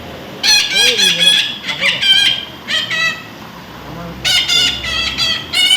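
Baby parrot calling in loud, harsh, warbling bursts, several quick calls at a time with short pauses between runs.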